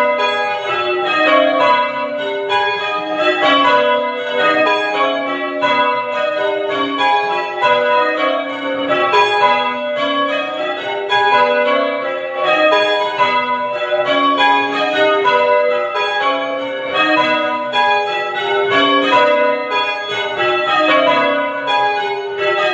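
Church bells being change-rung, the bells striking one after another in a steady, even rhythm.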